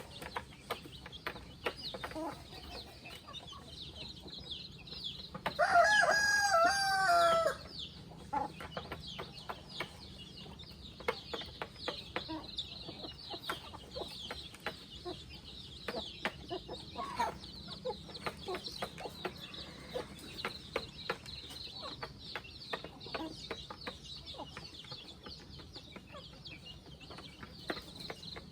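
Free-range chickens: a rooster crows once, loud and about two seconds long, some six seconds in. Around it, chickens cluck softly among many small ticks and high chirps.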